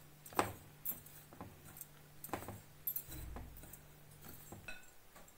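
Dry flour and baking powder being mixed by hand in a glass bowl, with faint, irregular clinks against the glass.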